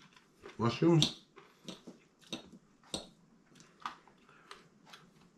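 Faint, scattered clicks and taps of someone eating: fork and knife touching a ceramic plate, with one sharper click about three seconds in.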